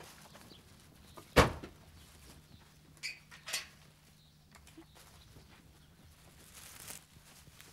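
Estate car's tailgate slammed shut: one loud bang about a second and a half in. About three seconds in, two lighter clicks follow.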